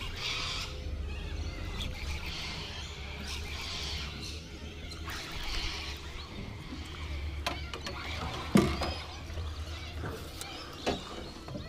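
Birds chirping in the background over a steady low rumble. A few sharp clicks are heard, and one louder sudden hit comes about eight and a half seconds in.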